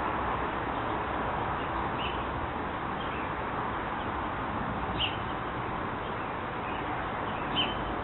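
Birds giving short, high chirps, five or six times, over a steady rushing background noise.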